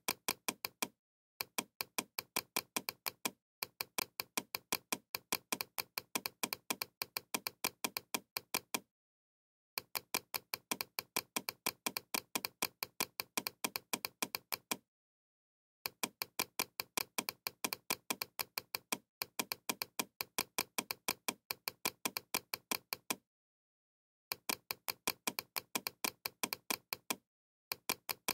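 Computer mouse button clicked rapidly and evenly, about nine clicks a second, in runs of one to five seconds with short silent gaps between them.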